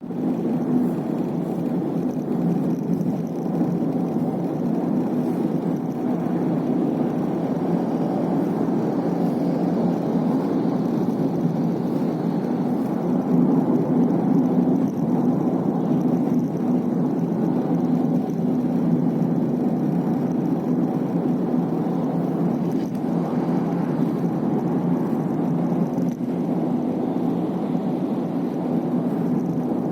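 Steady road and engine hum inside a Honda City's cabin while driving, with a few faint knocks or ticks now and then. The owner is recording these as an abnormal noise from around the B-pillar.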